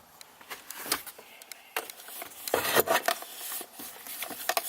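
Handling noise: a string of small clicks, taps and rubbing, with a louder cluster of knocks and scraping about two and a half seconds in.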